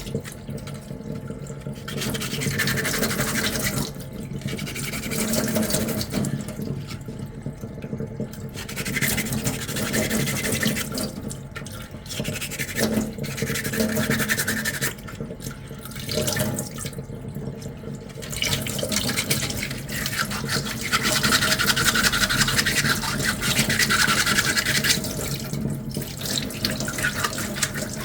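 Coarse-grit sandpaper rubbed by hand over a small puttied armour piece, a rasping hiss in quick back-and-forth strokes that comes in spells of a few seconds with short pauses between, the strongest spell near the end.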